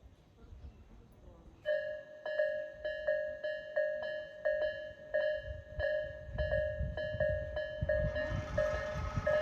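Japanese railway level-crossing alarm starting up about two seconds in: electronic bell tones striking roughly twice a second, at uneven spacing because two alarms ring at different tempos. Near the end a second, higher-pitched set of tones joins. A low rumble builds over the last few seconds.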